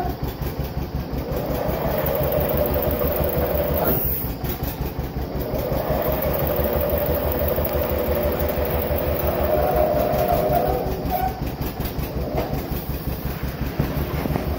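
John Deere 720's two-cylinder diesel engine running with a steady, even low beat; the level dips briefly about four seconds in.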